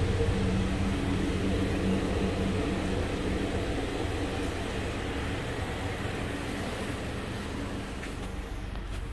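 Chevy Cruze 1.4-litre turbocharged four-cylinder engine idling with a steady hum, growing gradually fainter.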